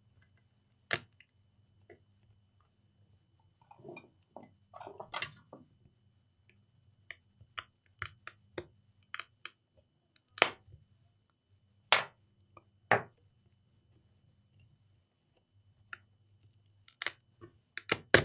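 Plastic display bezel of a laptop being pried off: a series of sharp, unevenly spaced clicks and snaps as its clips let go, with softer scraping and handling a few seconds in.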